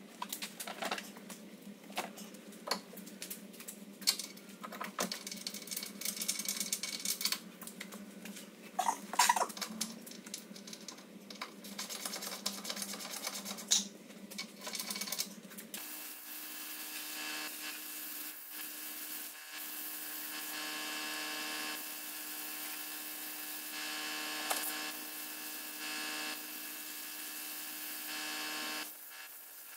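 Workshop work on a car's front end: scattered sharp metallic clicks and knocks from hand tools. About halfway through, a steady electric hum with several fixed tones takes over and runs on, briefly dropping out a couple of times.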